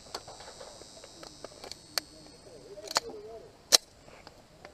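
A few short, sharp clicks, the loudest about three and three-quarter seconds in, with faint voices in the background.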